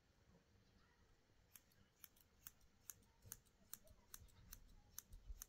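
Faint, sharp clicks repeating about three times a second, some in close pairs, starting about a second and a half in, like a hand tool snipping. A low rumble swells near the end.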